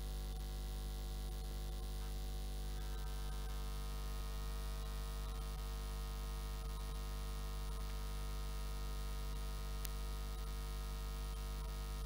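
Low, steady electrical mains hum with a faint hiss of static, unchanging throughout.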